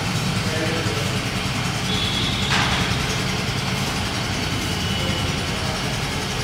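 Yamaha Fascino 125 Fi Hybrid scooter's 125 cc single-cylinder engine idling steadily after being switched on. A brief rush of noise comes about two and a half seconds in.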